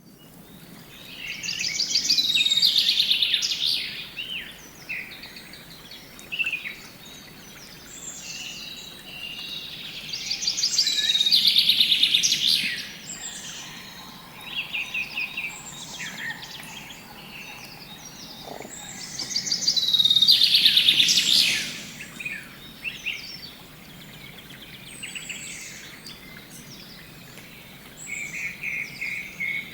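Birdsong: a bird sings loud, warbling phrases full of rapid trills roughly every nine seconds, with softer scattered chirps in between.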